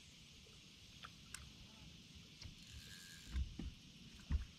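Two short, dull low thumps from the bass boat's front deck, about three and a half and four and a half seconds in, over a steady high insect drone and a few faint clicks.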